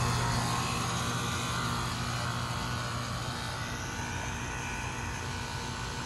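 Goodman 3-ton central air conditioner condenser running: a steady fan whoosh over a low compressor hum, fading somewhat over the first two seconds and then holding level.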